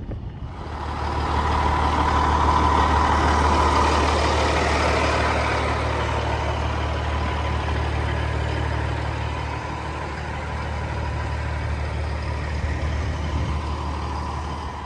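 Semi truck's diesel engine running steadily under way, a deep steady hum with a thin whine on top, loudest a couple of seconds in.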